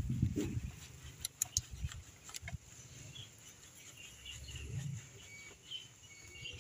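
Birds chirping faintly in the background, with a few sharp clicks and low thumps.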